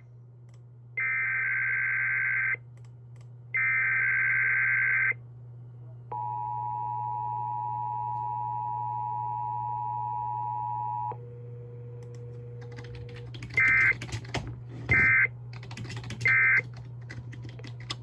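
Emergency Alert System encoder-decoder sending an EAS message: two screeching SAME header data bursts, then the steady two-tone attention signal for about five seconds, a lower steady tone for about two seconds, and finally three short end-of-message (EOM) bursts. A constant low electrical hum runs underneath.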